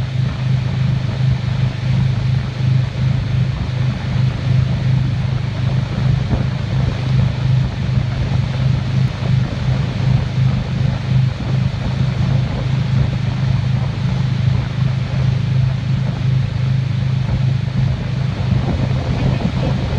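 Tow boat's engine running steadily under way, a constant low drone, with wind buffeting the microphone and the rush of the churning wake.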